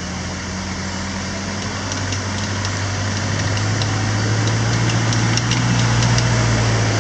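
An off-road 4x4's engine running at low revs as it crawls down a muddy trail, a steady low hum that grows louder as the vehicle comes closer.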